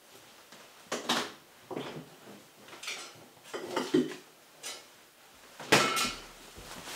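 Dishes and cutlery clattering as they are handled at a kitchen counter: a string of separate clinks and knocks about a second apart, the loudest near the end.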